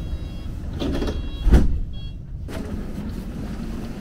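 Steady low rumble of a vehicle in motion, heard from inside it, with one loud thump about a second and a half in.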